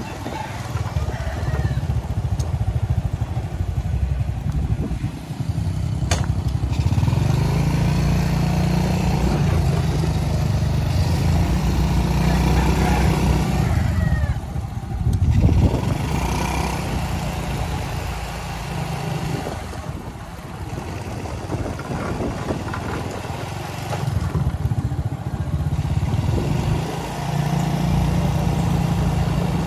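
A motor vehicle engine running while under way. Its note rises and falls in pitch as the speed changes.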